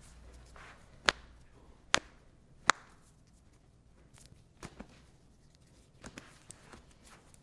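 Three sharp joint cracks a little under a second apart as a patient's leg joints are manipulated in a chiropractic adjustment, followed by several fainter pops and clicks.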